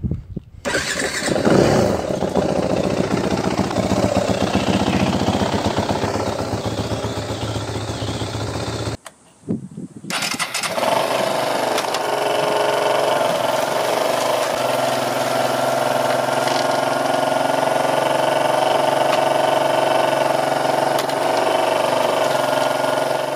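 A dirt bike's engine starts about half a second in and is revved unevenly. After a short break, the single-cylinder engine of a homemade all-wheel-drive motorcycle, the Arukinasu 200 AWD, is kick-started with the bike up on a stand and then runs steadily.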